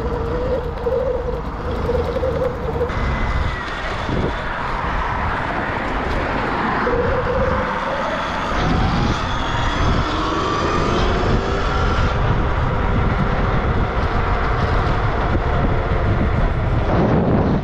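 Surron electric dirt bike under way: the motor's whine climbs in pitch as it accelerates about halfway through, over steady wind and tyre noise.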